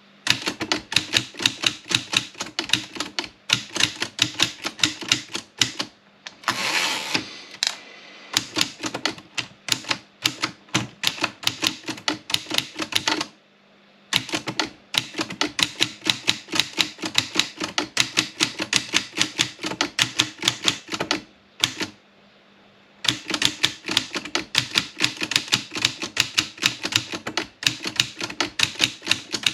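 Olympia Plana manual typewriter being typed on: runs of sharp key strikes at about five or six a second, with two short pauses. About seven seconds in there is a longer rasping sweep in place of the strikes.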